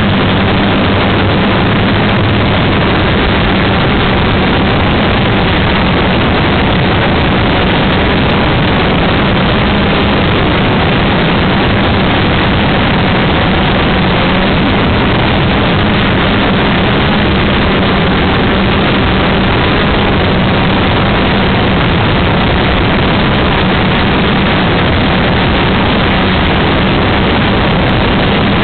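Electric motors and propellers of a four-rotor hobby quadcopter, heard through the camera it carries: a loud, steady rush with a constant low hum underneath as it hovers.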